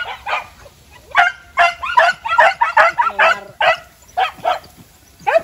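Hunting dogs yelping in a rapid, excited run of short, high cries that fall in pitch, about three a second, thinning to a few single yelps near the end: dogs giving voice in pursuit of a civet.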